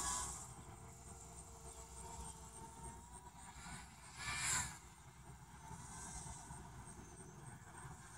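Black Darter 250 quadcopter's motors and propellers whirring faintly in flight. The sound swells briefly as it passes near, once at the start and again about four and a half seconds in.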